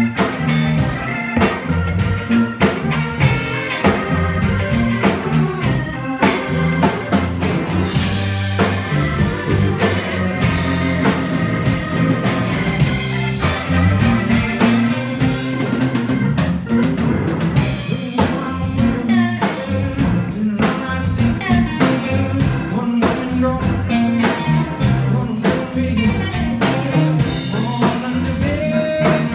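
Live blues band playing an instrumental stretch of a song: electric guitar and organ over bass and a drum kit keeping a steady beat.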